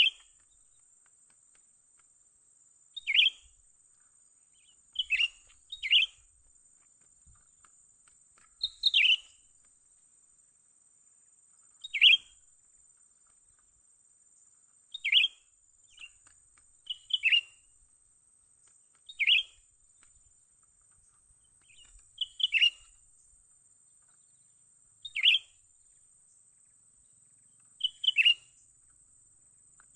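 Cucak ranting calling: about a dozen short, sharp chirps, one every two to three seconds, some of them in quick pairs. A faint steady high-pitched whine runs behind them.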